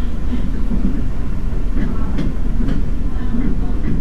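Taiwan Railways DRC1000-series diesel railcar running at about 70 km/h: a steady low rumble from the engine and running gear, with a few sharp wheel clicks about two seconds in.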